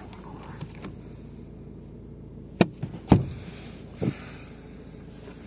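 Car interior trim being handled, with the sun visor being folded back up. There is a sharp click about two and a half seconds in, then two duller knocks about half a second and a second later, over a low steady hum.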